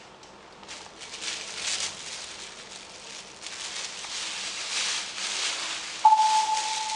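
Uneven rustling, pattering noise. About six seconds in, a single clear steady tone starts suddenly.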